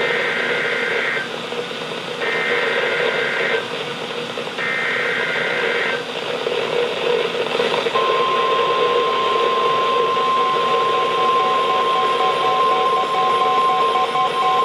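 NOAA Weather Radio SAME alert header: three short bursts of warbling data tones about a second apart, then, about eight seconds in, the steady 1050 Hz warning alert tone, heard through a weather radio's speaker over a constant reception hiss. It marks the start of a new warning broadcast.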